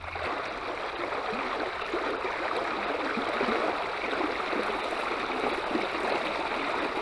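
Shallow creek current rushing steadily over a riffle close by.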